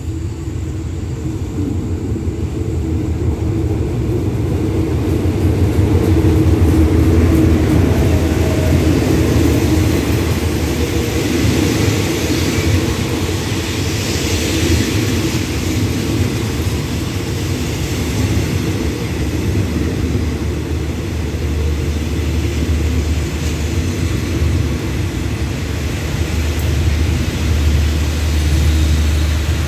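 Express train drawing into the platform behind a Hitachi diesel-electric locomotive: a deep engine drone swells over the first few seconds as the locomotive approaches and passes. The coaches then roll by on the rails as the train slows to stop.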